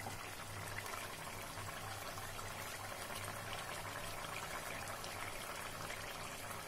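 Chicken curry with yogurt boiling gently in a pan on a gas stove: a steady bubbling and fine popping of the gravy.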